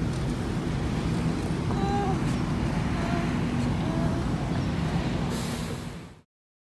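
Steady low rumble with an engine-like hum, typical of road traffic, with a few faint short high sounds, fading out to silence about six seconds in.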